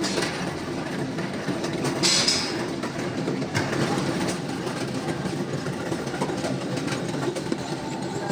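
Factory machinery running with a steady, dense clatter, and a short burst of hiss about two seconds in.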